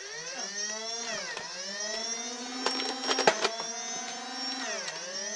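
Electric flywheel motors of a Nerf blaster whirring as they rev up, slowing twice and spinning back up in pitch. A few sharp clicks about three seconds in.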